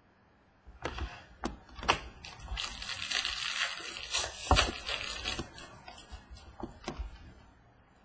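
Hard plastic trading-card cases and cards handled on a tabletop: several sharp clicks and knocks as a case is set down and picked up, with a rustle of cards or plastic sliding in the middle.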